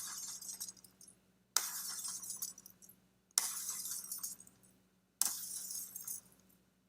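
Glass-crash sound effect, run through audio filters and played over and over: a sudden shattering crash with high tinkling that dies away, three times about two seconds apart, with the tail of another crash at the start.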